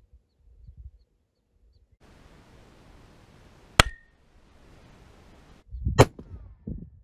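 Two rifle shots from a Ruger RPR in .338 Lapua Magnum, each a single sharp crack, about two seconds apart. A faint hiss lies between them, and low rumble follows the second.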